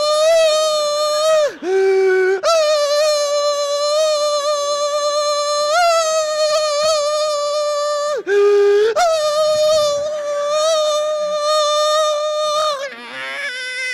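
A man's voice making a long, high-pitched nasal whine in imitation of a mosquito's buzz. It holds one steady note, dips twice briefly to a lower note about two and eight seconds in, and slides down and wavers near the end.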